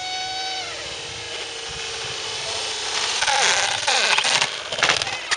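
Electric motor and propeller of a radio-controlled F4U Corsair model plane whining. The pitch dips about half a second in, and from about three seconds in the motor surges louder and noisier with a wavering pitch as it is throttled up.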